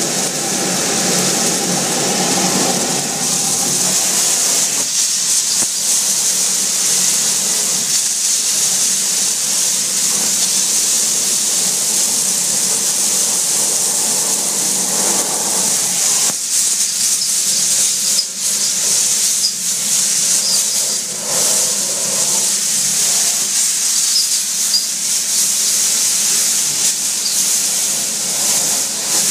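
Sewer vacuum hose sucking up sludge through its safety shutter nozzle: a loud, steady rush of suction air, with a lower hum in the first few seconds that fades and returns faintly around the middle. A few sharp knocks come in the second half.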